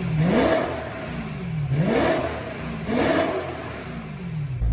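BMW E90 M3's naturally aspirated 4.0-litre S65 V8 revved in three throttle blips, each rising quickly then falling slowly back toward idle. It runs through an AME valved mid- and rear-section exhaust with the exhaust valves closed.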